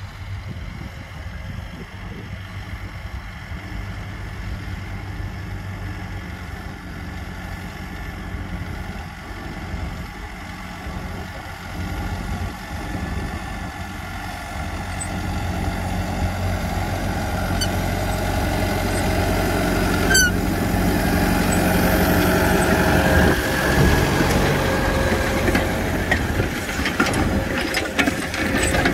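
Mahindra 6075 tractor's diesel engine working under load as it pulls a disc harrow, growing steadily louder as it comes near. In the last several seconds the harrow's steel discs cutting through the dry soil add a gritty hiss with scattered clanks.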